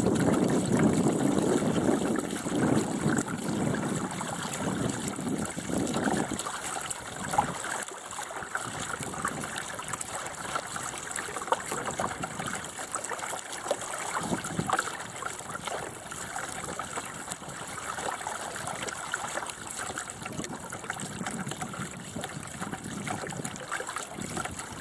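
Water rushing and gurgling along the hull of a small sailing dinghy under way. It is louder for the first several seconds, then settles, with a couple of short knocks.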